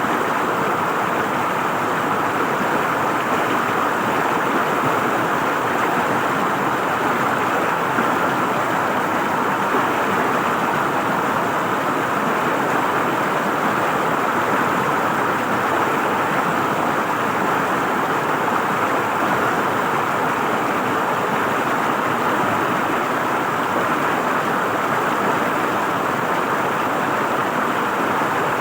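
River water flowing and gurgling over rocks in a steady rush.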